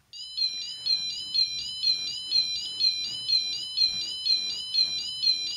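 Train-Tech LC10 model level crossing sound module sounding its warning alarm through its small speaker: a high electronic warble that repeats evenly, pulsing about twice a second. It is set off by a wagon passing the track sensor.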